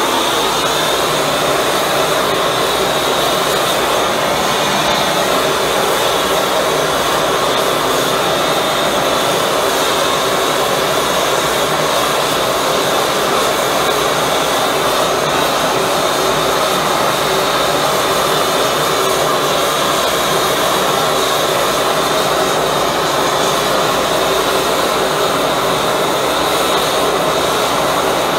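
High-velocity propane burner with compressed-air assist running steadily, a loud even rushing noise like a jet.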